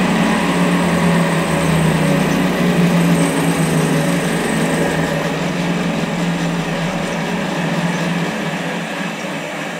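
Zanussi Super Jetsystem washing machine spinning its drum in the intermediate spin between rinses, a steady motor hum and whirr that grows gradually quieter over the last few seconds.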